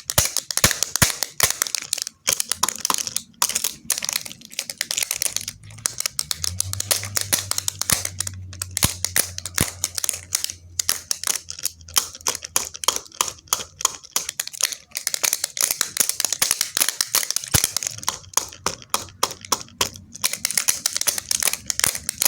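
Rapid, irregular clicking and tapping on a hard surface, many taps a second, with a low hum for several seconds partway through.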